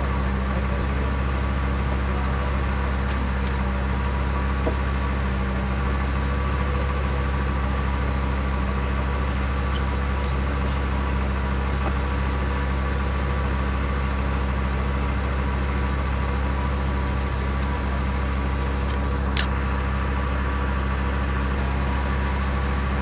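A vehicle engine idling steadily, with a single sharp click late on.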